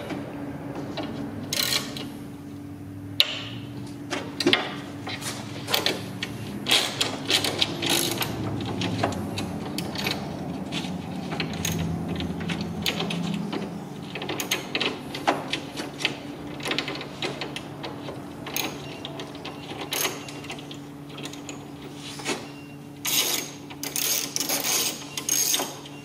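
Long-shafted hand driver with a reverse Torx E7 socket clicking and rattling irregularly as it backs out the reverse-threaded window-clamp bolt inside a car door, over a steady low hum. The clicks come thicker near the end.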